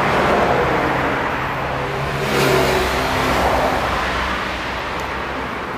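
A motor vehicle's engine running, swelling about two seconds in and then slowly fading.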